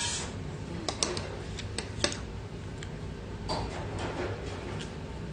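Thin metal chopsticks click sharply against an aluminium pot, several times in the first two seconds, followed by softer sounds of eating ramyeon noodles.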